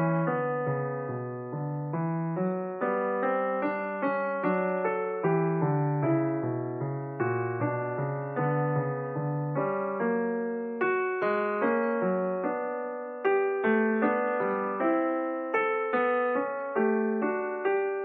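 Background piano music: a slow, gentle solo piece of single notes and chords, each struck and left to fade.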